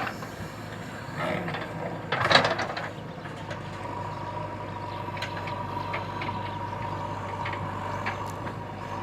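JCB 3DX backhoe loader running steadily, with clattering metal knocks a little over one second in and louder ones just after two seconds. A steady high tone joins the engine sound about three and a half seconds in.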